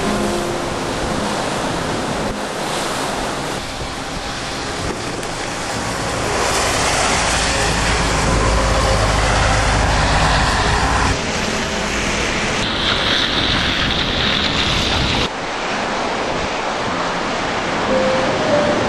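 Storm wind gusting on the microphone with rain and rough bay water splashing, a dense rushing noise that changes abruptly several times, with a heavy low rumble for a few seconds in the middle.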